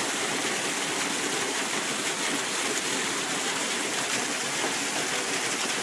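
Steady hiss of heavy rain and running water on a flooded sidewalk, constant throughout.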